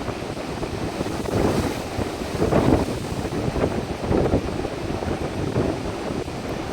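Mediterranean sea waves surging and washing up the beach, with wind buffeting the microphone in low rumbles.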